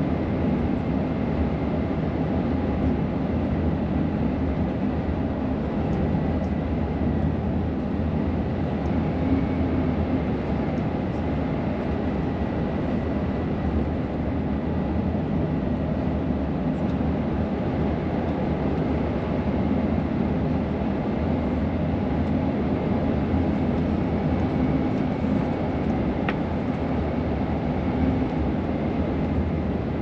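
Car driving: steady low road and tyre rumble with no change in pace.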